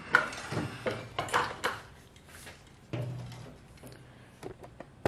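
Knocks, clicks and rattles of a small Honda FG100 tiller being handled and tipped over on a workbench. The sharpest knocks come in the first couple of seconds, with fainter ticks later.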